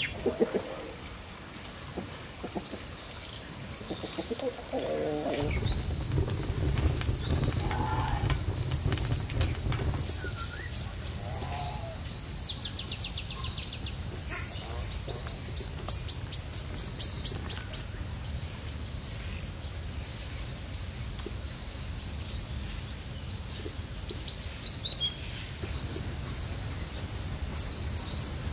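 Outdoor garden ambience: small birds chirping and trilling in quick rapid series over a steady high-pitched insect drone. A low rumble comes in about five seconds in and lasts a few seconds.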